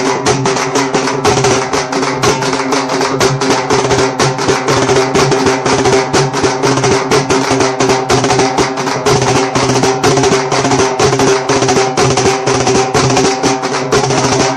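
Music with a fast, even drumbeat, about four or five strokes a second, over sustained held notes.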